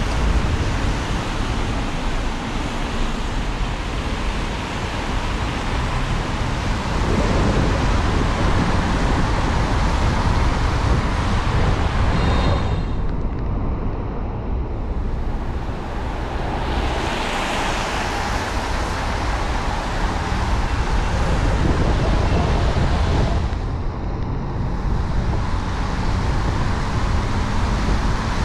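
Car driving on a wet road: steady tyre hiss and road rumble with wind buffeting the microphone. The high hiss drops away briefly about halfway through and again near the end.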